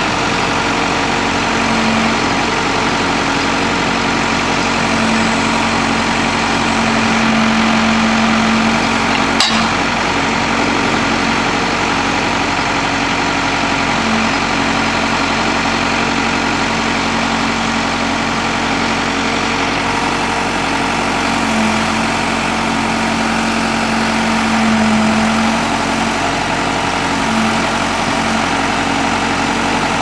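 Case 580M backhoe's four-cylinder diesel engine running steadily at idle, its tone swelling slightly now and then. A single sharp click about nine and a half seconds in.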